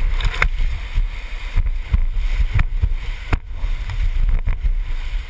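Rushing whitewater heard from a raft, with wind buffeting the microphone in a gusty low rumble and a few sharp knocks.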